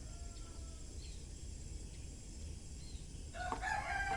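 A rooster crowing: a faint crow trails off in the first half second, then a loud crow begins about three seconds in, over a steady low rumble.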